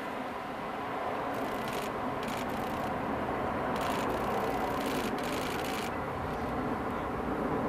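Twin GE9X turbofans of a Boeing 777X-9 in a flypast: a steady jet engine noise slowly growing louder. Several short bursts of rapid camera shutter clicks sound over it.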